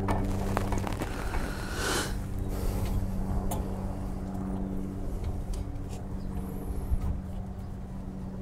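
A steady motor hum runs throughout, with scrapes and metallic clicks as the brake caliper is worked back over the new brake pads. The sharpest click comes near the end.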